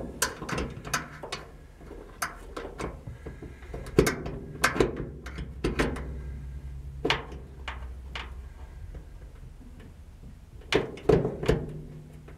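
Irregular light clicks and knocks of metal parts and a small hand tool being handled while an electric windshield wiper motor is fitted through the cab header, over a faint steady low hum.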